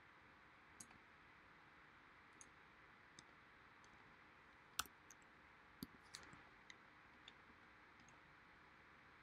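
Faint, scattered clicks of a computer mouse, about eight in all at irregular intervals, the sharpest about five seconds in, over a faint steady hiss.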